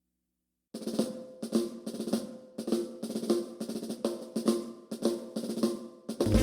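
Background music: after a moment of silence, a drum intro of evenly spaced snare and bass drum hits starts about a second in, leading into a fuller jazzy tune near the end.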